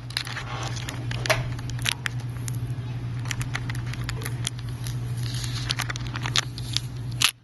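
Plastic film being peeled off a phone's glass screen: scattered crackles and small clicks over a steady low hum.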